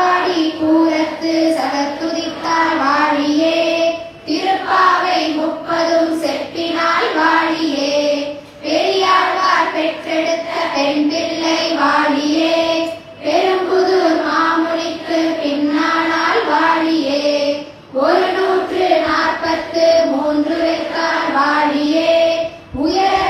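A large group of women singing Tamil devotional verses in unison, a steady chant-like melody in phrases of about four to five seconds with short breaks for breath between them.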